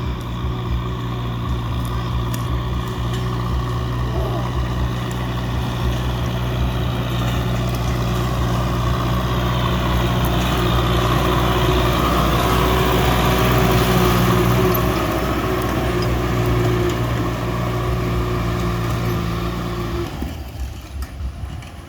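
Tractor engine running steadily, getting louder toward the middle. Its note stops abruptly about twenty seconds in.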